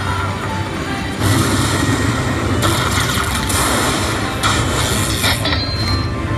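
Aristocrat Lightning Link slot machine's win celebration: its music plays as the win meter counts up. Sudden hissing bursts start about a second in and recur several times, as electronic lightning effects.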